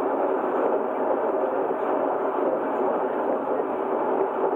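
Steady running noise of a passenger train in motion, its wheels on the rails, heard from inside the carriage.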